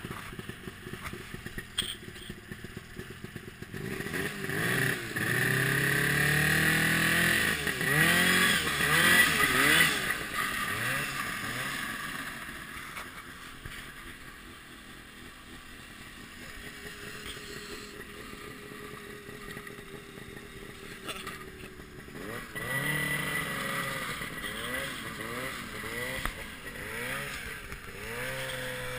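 1972 Mercury Lightning snowmobile's two-stroke engine, running on a new clutch and carburettor, revving up and down as it is ridden. The pitch rises and falls repeatedly, loudest in the first third and again near the end, with a lower, steadier stretch in between.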